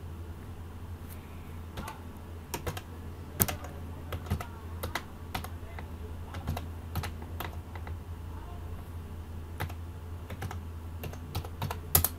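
Computer keyboard typing: irregular key clicks as a web address is typed out, with the loudest pair of clicks near the end.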